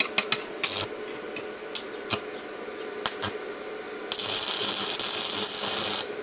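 Stick-welding electrode tapped and scratched against steel several times to strike the arc; about four seconds in the arc catches and burns with a steady loud hiss for about two seconds, then cuts off suddenly. The arc is fed by a Mächtz MWM-355 TB inverter welder set to 200 A in turbo mode.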